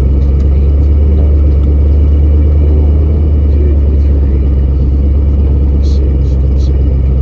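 Old pickup truck driving, a steady loud low rumble of engine and road noise, with a few light clicks about six seconds in.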